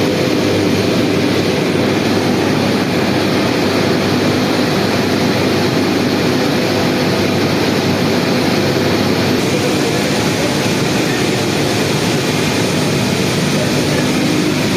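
Loud, steady drone of heavy industrial machinery running without a break.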